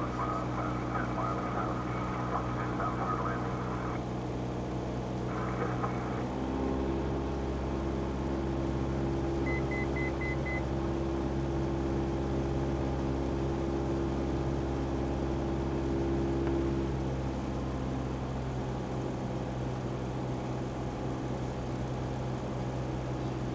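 Single-engine light airplane's piston engine and propeller droning steadily, heard in the cockpit; the engine note changes about a quarter of the way through and eases a little about two-thirds through. A quick row of five short, high electronic beeps sounds once, a little before the middle.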